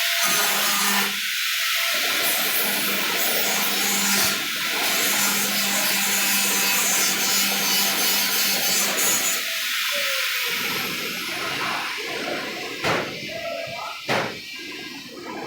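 Metalworking noise: a steady harsh hiss with a faint hum for about nine and a half seconds, then lighter scraping noise and two sharp knocks near the end.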